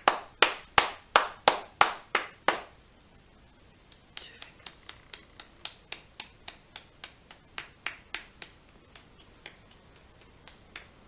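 Hands tapping out rain as body percussion: loud, regular taps about three a second, a short pause, then softer taps that thin out and fade toward the end, imitating rain easing off.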